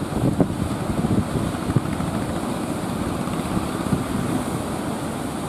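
Heavy surf with wind buffeting the microphone: a steady, low rumbling noise with a few sharp gusts in the first two seconds.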